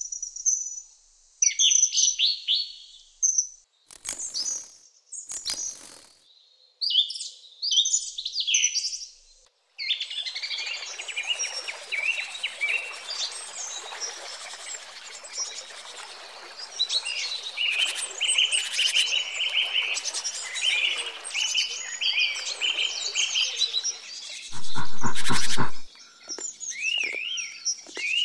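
Common kingfisher's shrill, high-pitched whistled calls in short bursts, then a flowing stream with songbirds singing over it. Near the end comes a loud, low, pulsing sound lasting about a second and a half.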